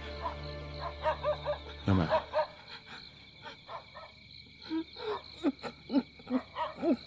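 Background music that stops about two seconds in with a low thud, followed by a string of short cries, each rising and falling in pitch, coming in quick irregular succession.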